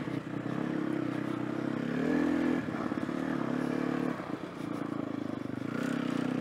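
Sherco enduro motorcycle engine running at low speed under light throttle. It rises about two seconds in, eases off briefly around four seconds, and picks up again toward the end.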